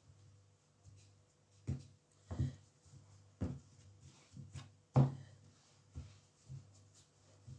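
Hands pressing and pinching shortcrust pastry into a metal tart tin on a wooden pastry board: a series of soft, irregular thumps and taps, the loudest about five seconds in, over a low steady hum.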